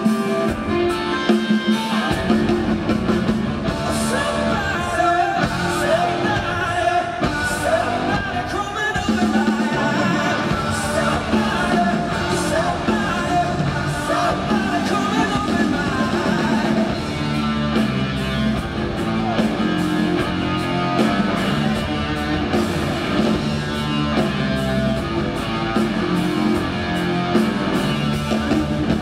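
Live hard rock band playing: distorted electric guitar and drum kit, with a male lead vocal singing over them.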